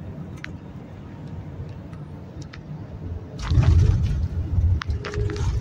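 Jet airliner cabin beside the engine: a steady low engine rumble with a few light clicks, which turns about three and a half seconds in into a much louder heavy rumble and rushing noise.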